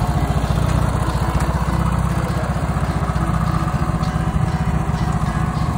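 Hustler zero-turn riding mower's engine running steadily as the mower is driven.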